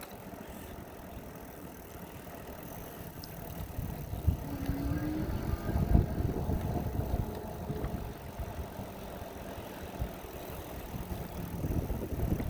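Wind buffeting the microphone on a moving e-bike, a low gusty rumble mixed with tyre and road noise that grows louder about four seconds in.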